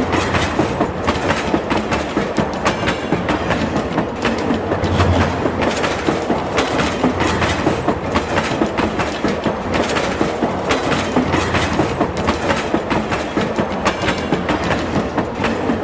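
Mini train running on its track with a steady, rapid clickety-clack of wheels and rattling.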